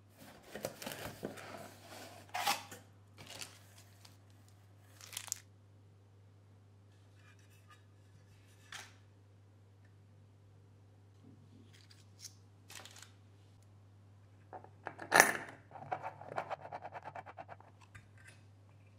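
Unboxing and handling of a passive radiator: cardboard box and clear plastic packaging rustling and tearing for the first few seconds, then a few scattered small knocks. About fifteen seconds in comes a sharp knock, followed by a quick run of light clicks, over a steady low hum.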